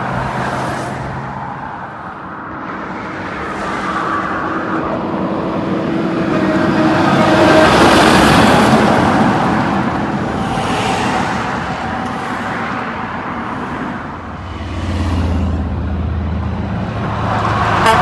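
Highway traffic passing close: cars and semi-trucks going by with tyre and engine noise, loudest about eight seconds in as a semi with double bottom-dump trailers passes. Near the end a semi-truck's diesel engine drones low as it comes alongside.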